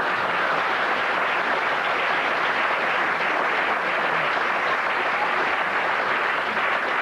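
Studio audience applauding mid-scene after a joke: many hands clapping in a dense, even patter at a steady level.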